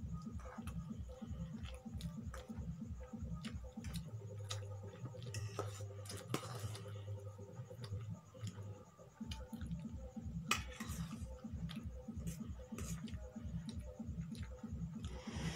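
Light scattered clicks of cutlery against steel bowls as two people eat noodles, over a fast, even low beat of background music.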